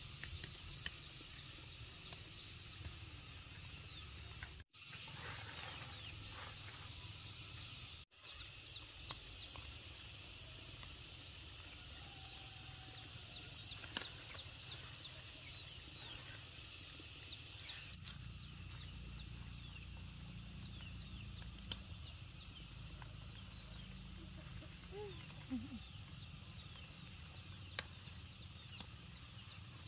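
Small birds chirping in rapid series of short, high, falling notes over a steady low rumble of background noise, with scattered light clicks. The sound drops out briefly twice, about five and eight seconds in.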